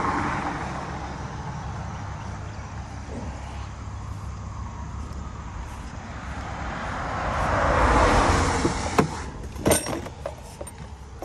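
Road traffic over a steady low engine rumble, with a vehicle passing that swells up and fades away. Near the end come several sharp clicks and knocks as a pickup truck's door is opened.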